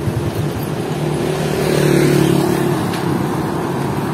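Motor vehicle engine running on a street, a steady hum that swells about two seconds in and then eases off.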